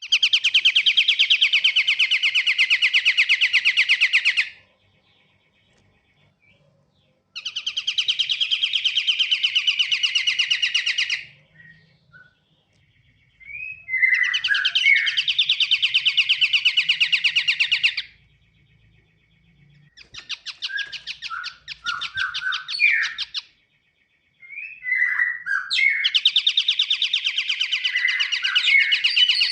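Pied triller (kapasan kemiri) singing: five long, rapid trills of about four seconds each, separated by short pauses. Sharp chirps are mixed into the later trills.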